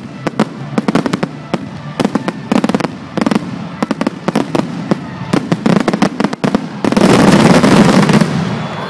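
Aerial fireworks shells bursting in quick succession, a string of sharp bangs and crackles several a second. About seven seconds in they build to a dense, loud barrage lasting over a second.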